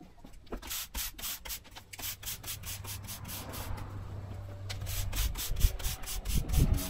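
A broom sweeping sand across a driveway to fill the paving joints, in quick, even strokes about four a second.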